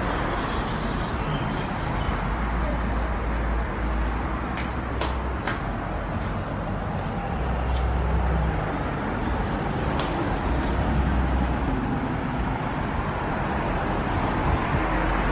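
Steady road noise with a low rumble from a moving car or passing traffic, with a few short clicks.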